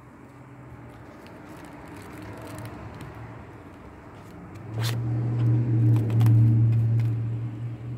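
A low, steady motor-like hum that swells suddenly about five seconds in and eases toward the end, with a few sharp clicks.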